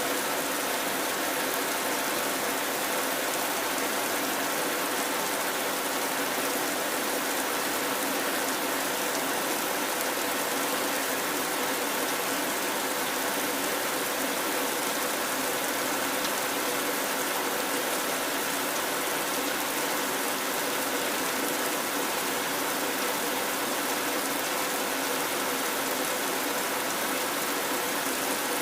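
Steady rain falling on a metal roof, an even, continuous patter of drops on sheet metal.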